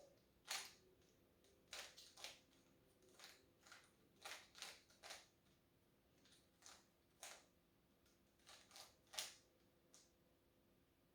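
Rubik's cube being turned by hand: short plastic clicks and clacks of the layers twisting, coming irregularly, one or two a second.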